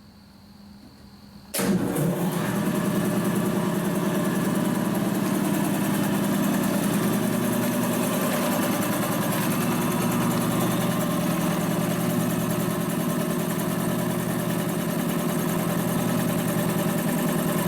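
Freshly rebuilt DeVilbiss DevAir 445 two-stage industrial air compressor switched on about a second and a half in: the motor and pump start abruptly and then run steadily, pumping up pressure against a shut valve.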